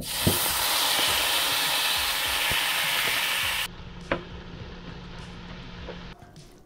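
Precooked beef and vegetables sizzling loudly as they hit a hot stainless-steel frying pan. After about three and a half seconds it cuts suddenly to a much quieter sizzle as the food is stirred with a spatula, with a light knock against the pan.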